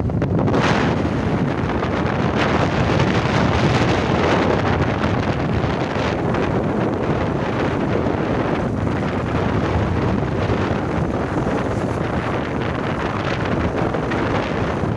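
Wind buffeting the microphone of a moving motorcycle, a steady heavy rush with a few brief gusts, over the running of the bike and its tyres on the road.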